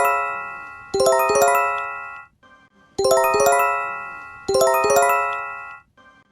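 A bell-like chime: groups of several quick notes that ring and fade, repeated about every one and a half to two seconds, with brief pauses between groups.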